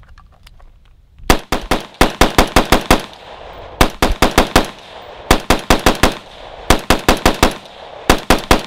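AR-15-style rifle firing six quick strings of about five to seven shots each, the strings roughly a second apart. The shots are loud and sharp, with echo trailing each one.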